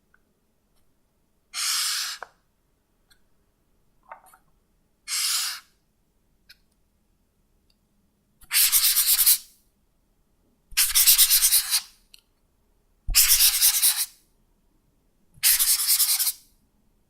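Highlighter marker tip scratching in six separate passes. First come two smooth strokes, then four longer, louder bursts of rapid back-and-forth scribbling.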